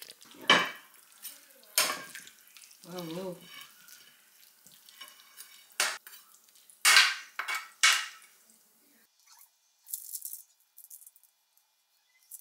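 Kitchen utensils clinking and scraping against a pan and dishes while food is served: about half a dozen separate clatters, with a short hiss near the end.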